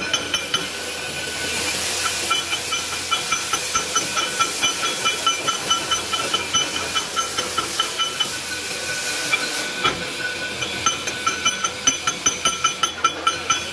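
Steel being struck rapidly with a hammer, about four or five ringing clinks a second. A steady hiss swells up through the middle of the stretch and fades again.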